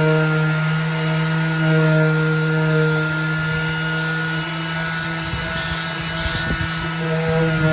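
Bauer 20-volt cordless 5-inch random orbital sander running steadily on a painted surface, a droning motor hum with irregular scuffing of the pad against the wood about two-thirds through. A rubbing noise keeps up under the hum, which the owner takes for the rubber pad rubbing against the top of the housing.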